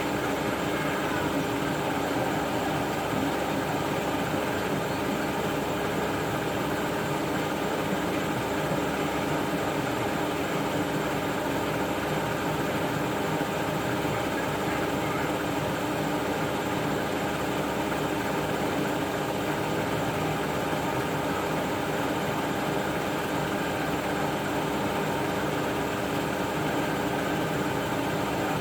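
Siemens Extraklasse F1300A front-loading washing machine spinning at a steady speed: a constant motor and drum hum with several steady whining tones, no pauses or changes in speed.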